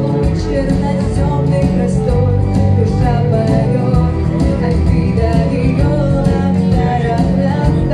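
A young woman singing a song into a microphone over instrumental accompaniment, amplified through a concert sound system.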